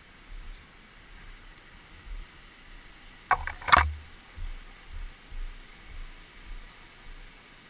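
Handling noise from a camera carried at walking pace: soft low thumps at irregular intervals, and a cluster of sharp knocks about three and a half seconds in.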